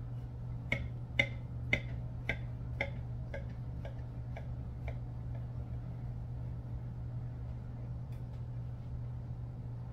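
Kitchen knife sawing back and forth through a glazed banana bread loaf on a glass dish, each stroke giving a sharp click, about two a second, fading away after a few seconds. A steady low hum runs underneath.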